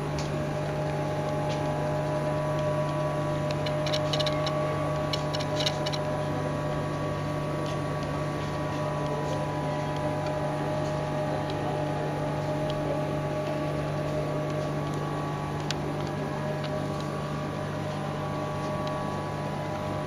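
A steady machine hum with a low drone and a few fixed higher tones, unchanging throughout, with a few light clicks about four to six seconds in.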